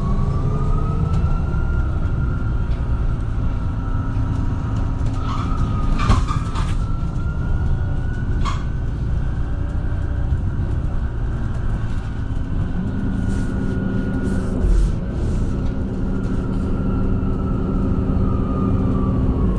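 MAN Lion's City Hybrid bus in motion: a whine rises in pitch in the first couple of seconds, holds steady, and falls near the end, typical of the electric drive speeding up and then slowing, over a steady low rumble. A few sharp knocks or rattles come in the middle.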